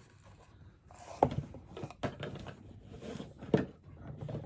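Cardboard advent calendar box being handled as a compartment is worked open: faint rustling with a few sharp knocks and taps, the loudest about a second in and again near the end.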